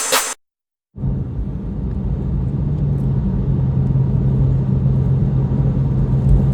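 A car running steadily, a low engine hum with road rumble, slowly getting louder, after the last moment of an electronic music intro and a brief gap of silence.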